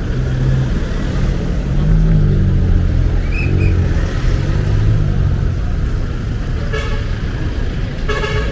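Road traffic: a vehicle engine rumbling low for the first few seconds, then two short horn honks near the end.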